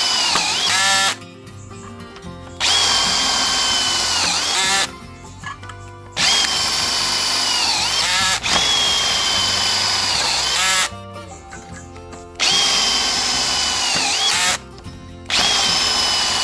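Stanley FatMax SBD715D2K 20V brushless cordless drill driving self-drilling sheet-metal screws. There are about five runs of a couple of seconds each, with short pauses between. Each run is a high whine that sags in pitch near the end as the motor takes load while the screw drills through and seats.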